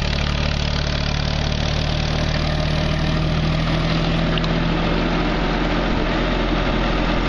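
Farm tractor engine running steadily as it tows a wagon, a low even engine note.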